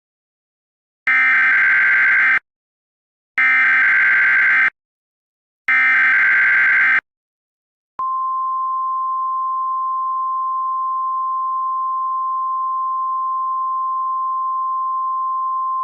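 Emergency Alert System SAME header: three short bursts of warbling digital data tones, followed at about eight seconds by the single steady 1050 Hz NOAA Weather Radio warning alarm tone. Together they announce a new warning, here a tornado warning.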